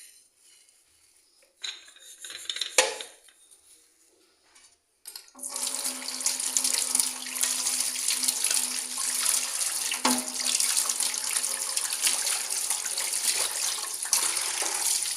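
A few short scrubbing strokes. Then, about five seconds in, a kitchen tap is turned on and runs steadily into a sink.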